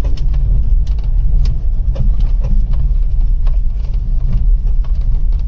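Maruti WagonR BS6 driving on the road, a steady low road and running rumble with scattered sharp knocks and clicks. The knocking comes from the left-side wheel's suspension, which the mechanic takes for something bottoming out or broken there.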